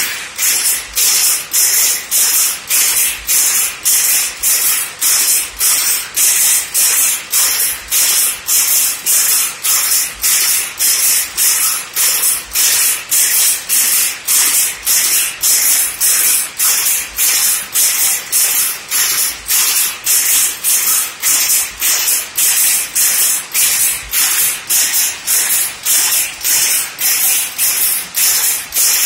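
A pick-and-pick 4×4 drop-box shuttle power loom running, the shuttle picked across and beaten up in a steady rhythm of sharp, loud strikes at about two picks a second.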